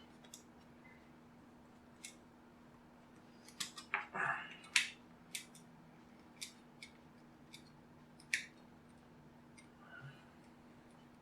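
Scattered small clicks and a brief scrape, about four seconds in, of a long thin screwdriver working at a screw deep inside a plastic speaker housing.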